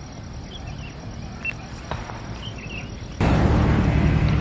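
Outdoor ambience with a few faint, short high chirps. About three seconds in, a loud, steady rush of noise cuts in abruptly.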